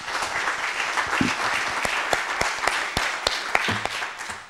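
Audience applauding after a talk, a dense patter of many hands clapping that dies away near the end.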